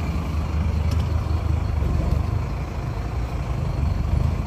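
Scania P310 tow truck's diesel engine running steadily at low revs as the truck creeps forward, heard from inside the cab as a low, even rumble.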